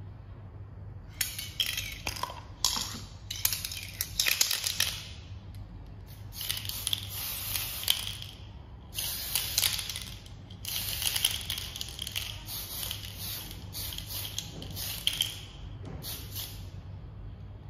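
Aerosol can of Mr. Top Coat flat clear lacquer rattling as it is shaken, then sprayed in a series of short hissing bursts, about six, each a second or two long.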